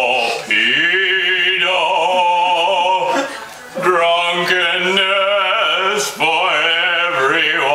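Operatic male singing: long held notes with a wide vibrato, in phrases that break briefly about half a second in, for a moment around three and a half seconds, and again about six seconds in.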